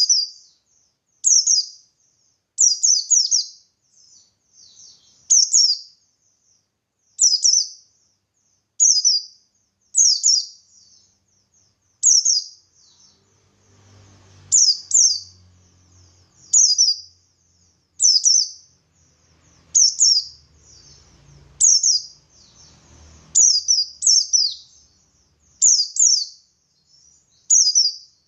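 Oriental white-eye of the buxtoni form (pleci buxtoni) giving short, high chirping calls in its wild-style 'ngalas' singing. The calls repeat about every second and a half, some in quick doubled pairs.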